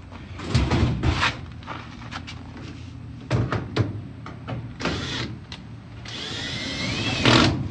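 Knocks and clatter of dryer parts being handled during reassembly, then near the end a power drill-driver runs for about a second and a half, building up before it stops.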